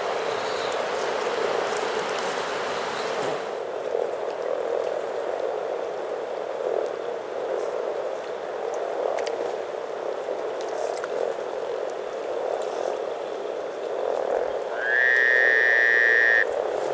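Breeding chorus of many frogs croaking together at a spawning pond, a dense, steady low purring. Near the end a loud, steady pitched note about a second and a half long cuts across the chorus, then stops suddenly.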